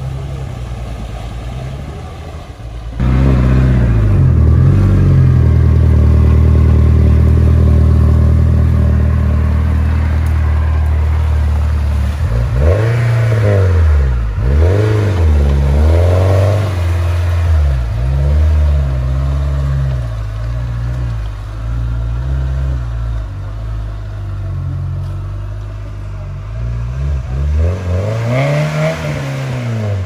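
Off-road vehicle's engine running hard, suddenly louder about three seconds in, then revved up and down in several swells about halfway through and again near the end.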